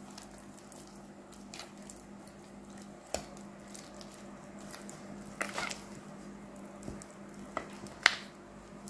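Silicone spatula folding thick blueberry muffin batter in a stainless steel bowl: soft squelching of the batter, with occasional brief scrapes and taps of the spatula against the bowl, the sharpest near the end.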